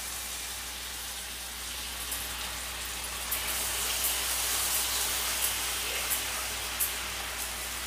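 Jaggery syrup with ghee sizzling in a pan as soaked chana dal is stirred through it with a wooden spatula, with light scrapes and taps of the spatula from about two seconds in.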